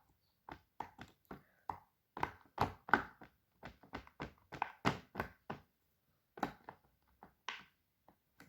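Fidget toys being tapped and handled: an irregular series of short, hard taps and knocks, two or three a second, with a brief pause a little past halfway and only a few taps near the end.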